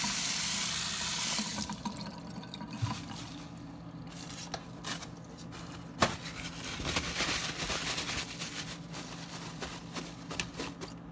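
Kitchen tap water running onto tomatoes and lettuce in a stainless mesh colander, shut off about a second and a half in. After it come scattered drips and small taps, one sharp click about six seconds in, and the rustle of a paper towel patting the produce dry.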